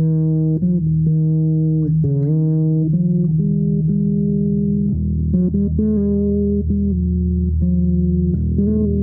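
A slow improvised melody on a plucked, guitar-family string instrument: mostly low, sustained notes that change every second or so, with a few notes sliding in pitch.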